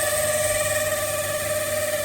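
Samsung 30-litre microwave oven running with a steady hum and whine. The noise comes from its faulty fan motor.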